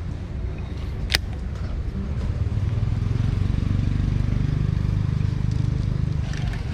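A low motor rumble that builds up and then eases off, with one sharp click about a second in.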